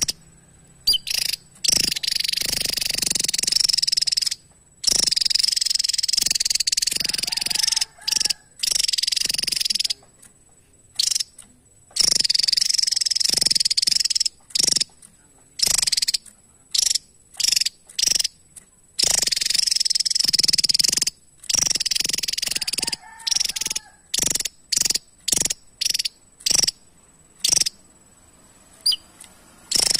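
Javan tesia singing: high, buzzy runs of rapid notes lasting a few seconds each, alternating with bursts of short, sharp chips.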